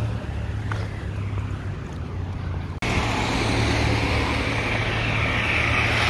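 Road traffic going by on a busy street, a steady rumble of passing cars. About three seconds in the sound breaks off for an instant and comes back louder, swelling near the end as a motor scooter passes close by.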